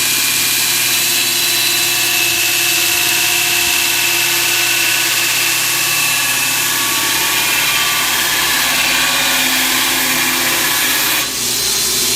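Belt grinder with a 36-grit ceramic sanding belt grinding into 1/4-inch steel: a loud, steady hiss of belt on metal over the machine's running hum, easing off briefly about eleven seconds in.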